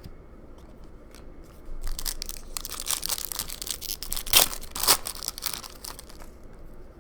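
Foil trading-card pack wrapper being torn open and crinkled, a run of crackling with two loud sharp crackles in the middle.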